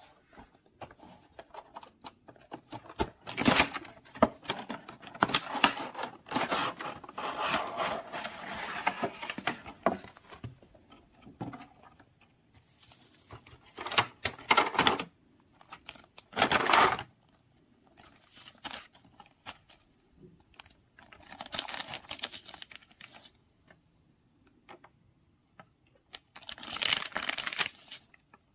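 Cardboard and plastic toy packaging being handled while a boxed toy set is unboxed. It comes in irregular bursts of rustling, scraping and crinkling with sharp clicks, including a clear plastic bag crinkling near the end.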